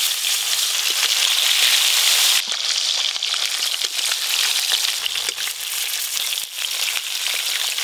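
Fish pieces frying in hot oil in a metal wok: a steady, dense sizzle and crackle, a little quieter from about two and a half seconds in.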